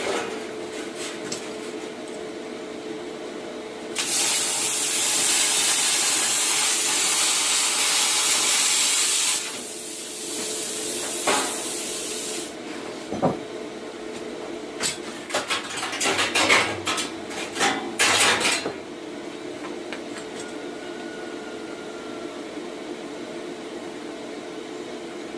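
Cut 50 plasma cutter: a loud steady hiss of air and arc for about five seconds, starting about four seconds in, then a run of sharp crackles and pops near the middle, over a steady hum.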